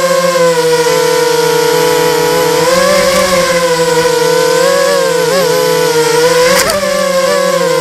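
Brushless motors and propellers of a 250-size FPV racing quadcopter whining steadily, the pitch dipping and rising as the throttle changes. There is a brief sharp knock about six and a half seconds in.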